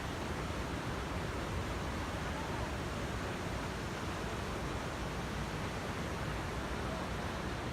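Iguazu Falls' water rushing as a steady, unbroken noise.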